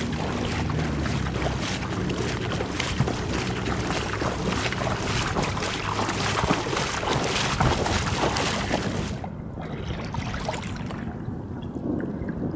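Rushing, splashing river water around a kayak, full of crackling spatters. About nine seconds in it changes abruptly to a softer, duller trickle of water.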